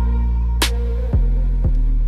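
Background music with a deep held bass and a steady drum beat, with a sharp crack about half a second in.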